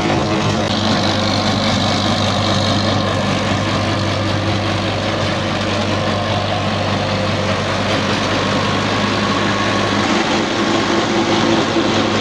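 Tractor engine running steadily at an even, low hum, as when ploughing a field.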